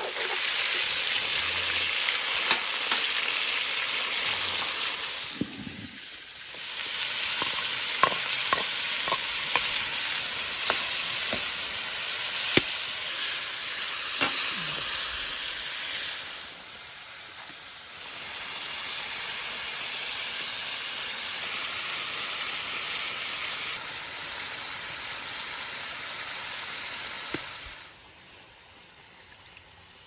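Rabbit and tomatoes frying in a black cauldron with a steady sizzle, stirred with a long wooden spatula. The spatula knocks and scrapes against the pot about a dozen times in the middle stretch. The sizzle fades near the end.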